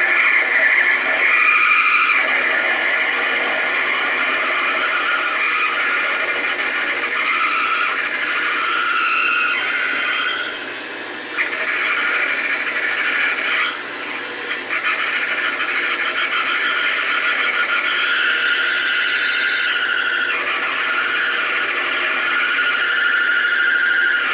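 Drill bit squealing as it cuts into a metal bar turning in a lathe, a steady high-pitched squeal that briefly lets up twice, about ten and about fourteen seconds in.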